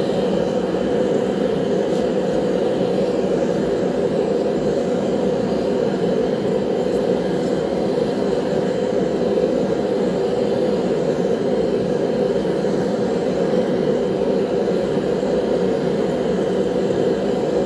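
Gas forge burner running with a steady, deep rushing roar that holds at one level throughout.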